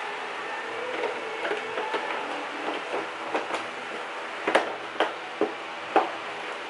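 Plastic front cowl of a Yamaha Mio scooter being pressed back onto the frame, its clips and tabs snapping into place: scattered light clicks, then four sharp, loud snaps in the second half.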